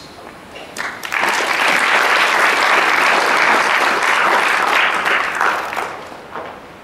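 An audience applauding, starting about a second in and dying away near the end.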